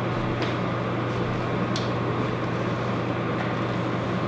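Steady low machine hum, with two faint clicks, about half a second and just under two seconds in.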